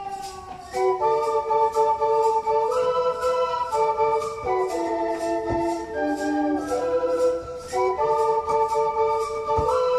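Recorded dance music with an electronic organ carrying the melody in held notes, over a light steady beat of about two ticks a second.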